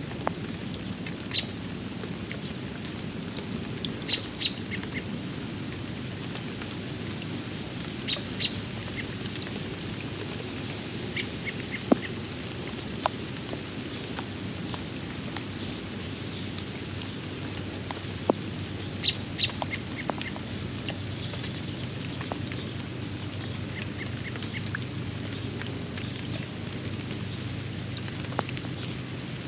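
Steady rain, with short sharp bird calls in little clusters every few seconds and a few louder single taps.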